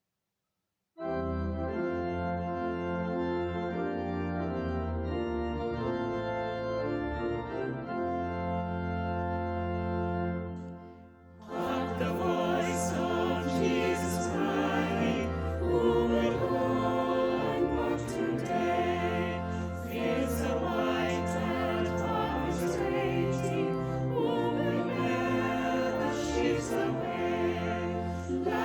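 Church music: an organ holding sustained chords, breaking off after about ten seconds into a choir singing with accompaniment.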